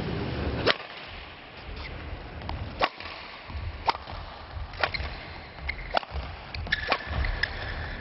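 Table tennis ball clicks: sharp, light hits of the celluloid ball on paddles and table, about one a second with a quick pair near the end, over a low hall murmur.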